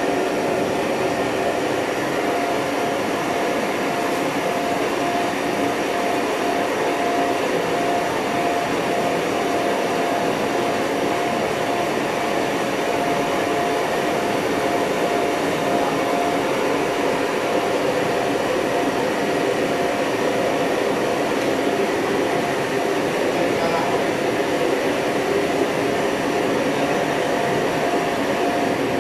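Gas burners of a commercial Chinese wok range burning at full flame: a loud, steady rushing noise with a steady hum over it.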